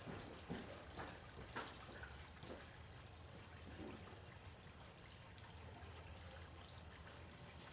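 Near silence: a low steady room hum with a few faint knocks in the first half.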